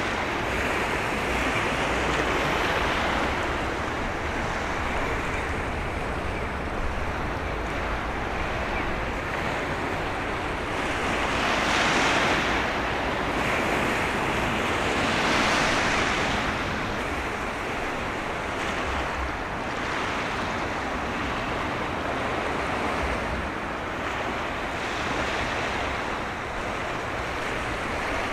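Choppy sea water washing and splashing, with wind buffeting the microphone; the wash swells louder twice, about twelve and fifteen seconds in.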